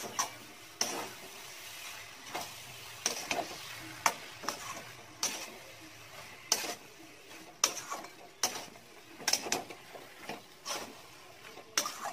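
Spatula stirring and scraping a thick banana-blossom curry (mochar ghonto) in a metal kadai, with sharp scraping strokes every second or so over a faint sizzle as the dish finishes cooking.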